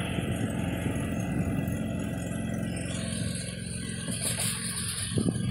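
Husqvarna YTH24V48 riding mower's V-twin engine running steadily while it tows a chicken pen on skids and wheels, the sound fading about three seconds in as the mower pulls away.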